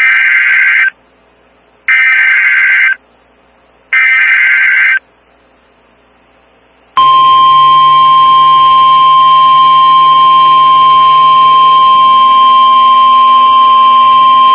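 Emergency Alert System SAME header: three loud one-second bursts of rapid two-tone digital warble, a second apart, encoding a tornado warning. After a two-second pause, the NOAA Weather Radio warning alarm starts about seven seconds in, a single loud steady 1050-hertz tone that holds.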